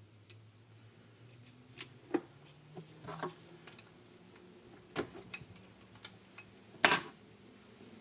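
A wrench and metal parts clinking and tapping while the old starter solenoid of a gas golf cart is unbolted and handled, in scattered sharp clicks with the loudest knock about seven seconds in.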